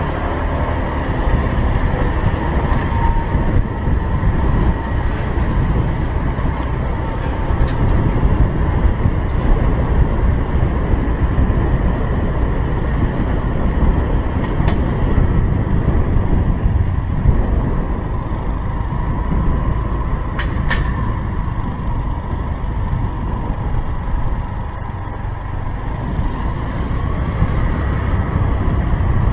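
Wind rumbling over a helmet camera's microphone on a moving motor scooter, with the scooter's engine running steadily underneath. Two sharp clicks come about two-thirds of the way through.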